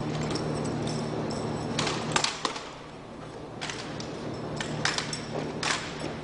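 Drill team's rifle manoeuvres and boot heels on pavement: sharp slaps, clacks and knocks in quick clusters, a few about two seconds in and more from nearly four to six seconds. A low steady hum sits under the first two seconds.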